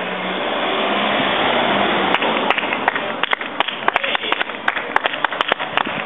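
A car drives past with a swelling rush of engine and tyre noise. About two seconds in, the pack of road cyclists rides by to sharp, irregular hand claps from spectators, several a second.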